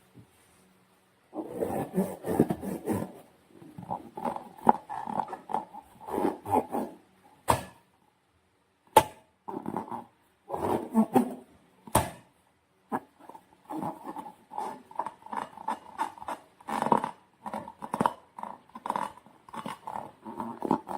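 Slime being squeezed and worked by hand, with irregular wet squelching in bursts and a few sharp snapping clicks.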